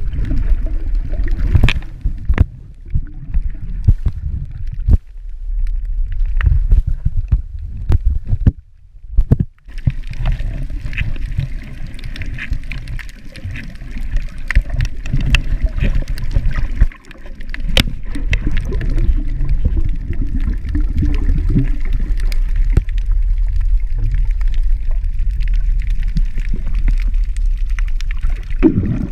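Muffled water noise recorded by a camera held underwater: a steady low rumbling swash with scattered clicks and knocks, and two brief drop-outs about 9 seconds in.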